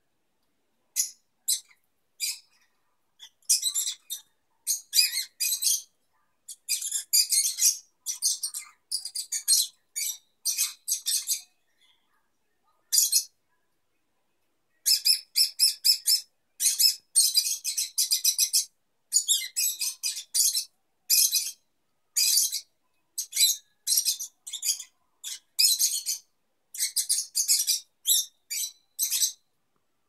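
A pair of peach-faced lovebirds chattering while mating: runs of rapid, high-pitched chirps with short gaps between them and a longer pause about halfway through.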